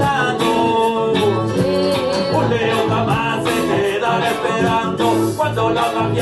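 Live reggae band playing: electric guitar over bass and drums, with a voice singing.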